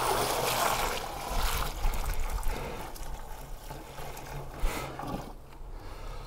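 Warm water being poured from a bucket into a bee waterer's tank, a splashing, running wash that is strongest at first and then eases off.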